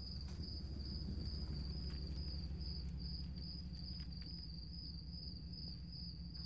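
Pickup truck engine running with a steady low rumble as the truck pulls in and stands, while crickets chirp in an even, pulsing rhythm.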